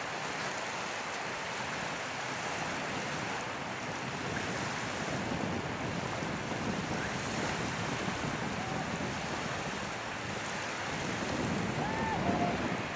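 Small waves washing onto a sandy shore, mixed with wind buffeting the microphone, as a steady rushing noise.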